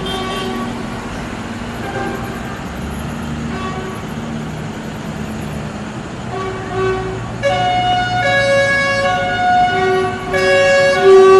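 Engines of a vehicle convoy running with a low rumble, then from about two-thirds of the way in several vehicle horns blow long, loud blasts together, their pitches shifting in steps.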